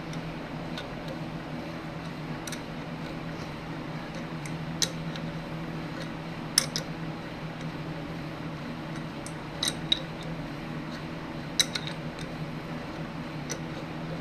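Hand tap and tap wrench cutting a quarter-inch pipe thread into an engine crankcase, with scattered sharp metal clicks, about eight in all, as the wrench is turned and repositioned. A steady low hum runs underneath.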